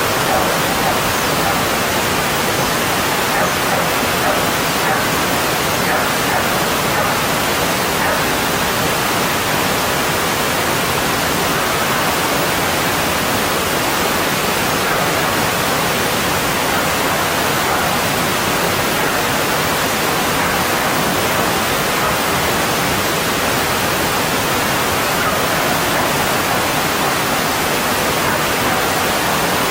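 A mountain stream rushing over rocks: a steady, loud wash of water with no breaks.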